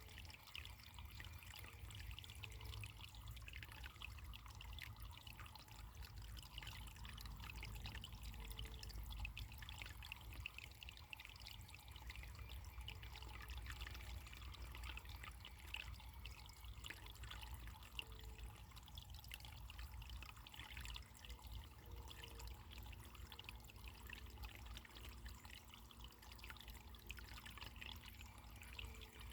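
Running water trickling and splashing over stones in a small stream, faint and steady, with many small splashes.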